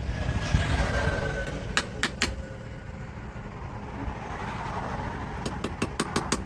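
Hammer striking metal at the forge: three sharp blows about two seconds in, then a fast run of lighter taps near the end, over a steady low rumble.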